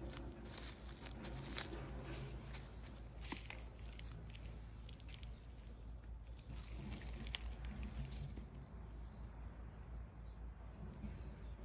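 Footsteps crackling and rustling through dry leaves and twigs, with scattered light clicks over a steady low rumble.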